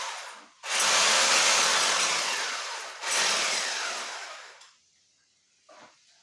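Electric drill running in bursts of power: a burst fading out right at the start, a long burst about a second in, and another that dies away as the drill winds down, followed by a faint knock near the end.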